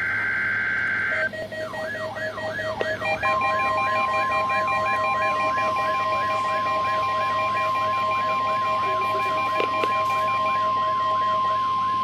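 Weather radio receivers alerting to a NOAA Weather Radio Required Weekly Test. A data burst ends about a second in, then a fast repeating warbling alarm and pulsed beeps start. About three seconds in, a steady warning alarm tone joins and holds until the end.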